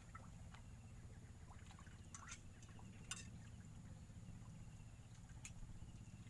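Near silence: a faint steady low hum with a few faint scattered clicks.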